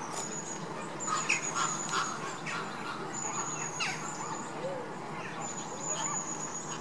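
Flock of Caribbean flamingos calling, many short calls scattered and overlapping, with a thin high-pitched trill that comes and goes several times.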